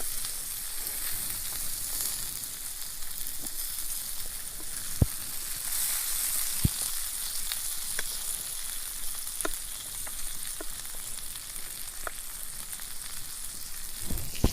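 Food frying in a small thin-walled pan: a steady sizzling hiss with a few sharp pops scattered through it.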